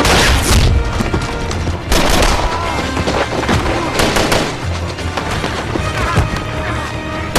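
Film battle gunfire: repeated bursts of heavy machine-gun fire and other shots with bullet impacts, at irregular intervals over a continuous din, with a music score underneath.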